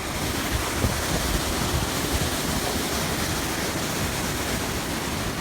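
Waterfall: the steady rush of a large volume of falling water, an even hiss with no breaks.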